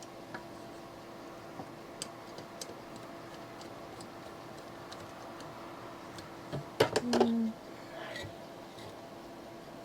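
Small tools and metal parts handled during a ceiling fan switch replacement: scattered light ticks and clinks, then a cluster of louder clicks and knocks with a brief squeak about seven seconds in. A steady low hum runs underneath.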